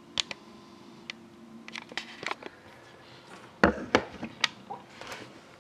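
Scattered clicks and knocks of objects being handled, with a cluster of louder thumps about three and a half to four and a half seconds in.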